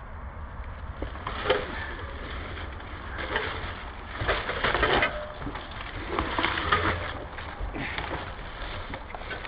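Irregular crunching and rustling of dry leaves and undergrowth in a series of bursts, over a steady low rumble on the microphone.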